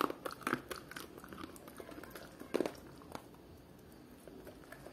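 A dog chewing a treat taken from a hand: irregular bites, several in the first second and a louder one about halfway through.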